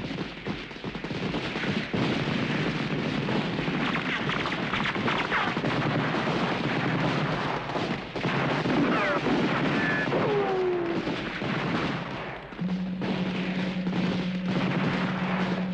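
Dense, continuous gunfire: rapid machine-gun bursts and rifle shots in a night battle soundtrack. A few falling whistling tones cut through about nine to eleven seconds in, and a steady low tone comes in near the end.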